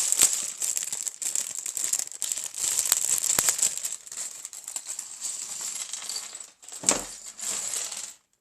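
Small plastic LEGO pieces rattling and clattering against a crinkling plastic parts bag as it is opened and emptied. The rattle is dense for the first few seconds, then thins out, and there is a thump about seven seconds in.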